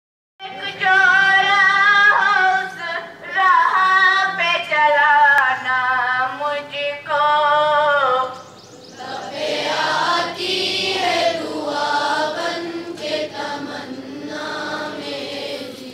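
A group of schoolchildren singing together in unison. The singing sounds clearer and thinner in the first half, then from about nine seconds in it becomes a fuller, more blended sound of many voices.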